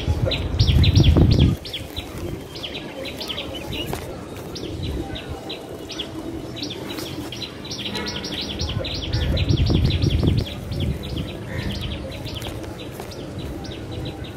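Small birds chirping, short high chirps repeating several times a second. Low rumbles, the loudest sound, come in about the first second and a half and again around the middle.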